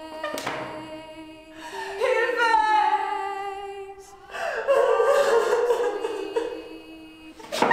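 A woman's voice singing slow, held notes with a wide vibrato over a steady sustained note in the background music. A single sharp knock sounds near the end.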